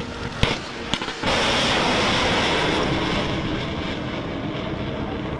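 Surface-to-air missile launch: a few sharp cracks, then about a second in the sudden loud rushing roar of the rocket motor, which slowly fades as the missile climbs away.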